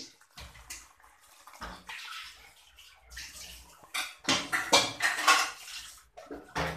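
Spiced liquid stock pouring and splashing from a pan into a rice cooker's metal inner pot onto soaked rice, with clinks and scrapes of metal cookware, loudest about two-thirds of the way in.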